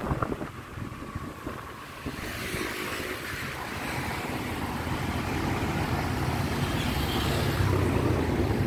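Motorbike engine running while riding, with wind rushing over the microphone; the sound grows steadily louder from about two seconds in.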